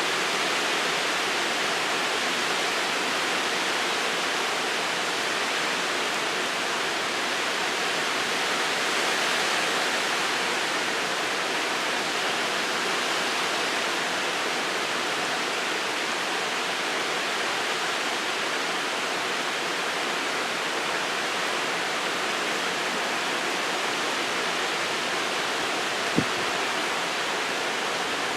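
Steady rain falling in the wind, an even hiss with no let-up. A single short knock comes near the end.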